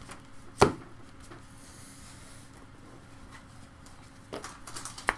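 Baseball trading cards being handled: a sharp tap about half a second in, then a few light clicks near the end as the cards are shuffled through.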